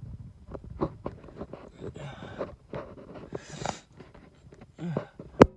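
Handling noise from an antique Duotherm oil heater being looked over: irregular light clicks and knocks, two short breathy scraping rushes, and one sharp click near the end that is the loudest sound.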